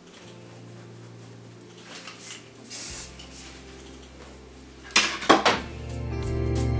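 Quiet background music that swells near the end, with a short hiss about three seconds in and a quick run of sharp metallic clicks from hairstyling tools about five seconds in.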